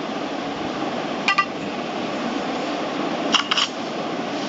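Smartphone camera app's shutter sound played through the phone's speaker: a short electronic click about a second in, then a quick double click near the end, over a steady background hiss.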